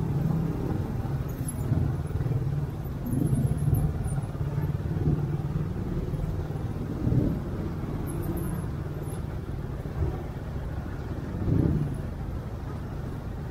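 Motorcycle engine running at low speed while crawling through dense traffic, its drone rising briefly several times as the throttle is opened.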